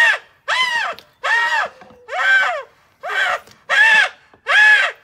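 Nubian buck kid bleating loudly and repeatedly in distress, about seven cries in quick succession, each rising then falling in pitch, while its horn bud is being removed.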